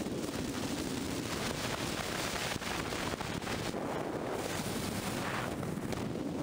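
Steady wind rushing over the microphone of a car-roof camera at highway speed, with road rumble underneath.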